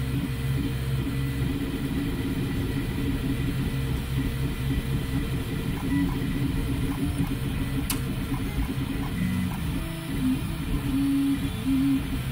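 FDM 3D printer printing: its stepper motors whine in shifting low pitches as the print head moves, over the steady hiss of its cooling fans. One sharp click about eight seconds in.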